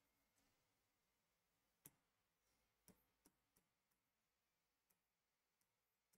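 Near silence with a scattering of faint, sharp clicks from a marker tapping on a board during writing; the loudest comes about two seconds in, the others are fainter.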